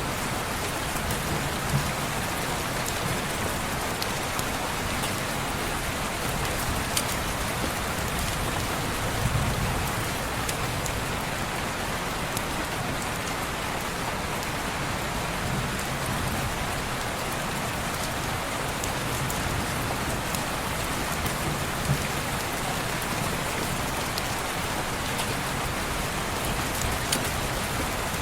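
Steady rain falling on window glass, an even hiss with a few faint sharp ticks scattered through it.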